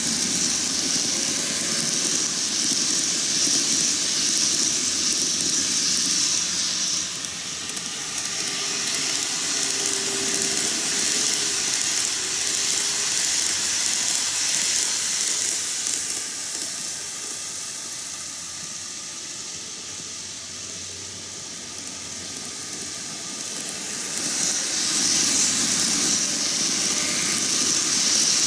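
N-gauge model trains, Tokyu 5000 and 5050 series, running on canted double-track rail: a steady hissing rattle of small motors and wheels on the track. It is louder at first and again near the end as the trains pass close, and quieter in the middle.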